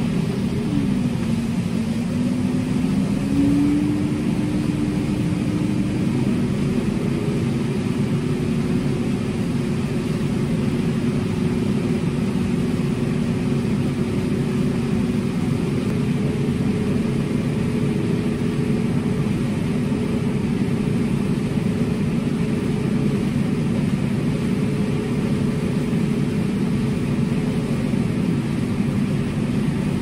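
Tractor engine running steadily under load, heard from inside the cab, with the combine harvesting alongside. The engine note dips about a second in, then climbs back and settles slightly higher over the next few seconds.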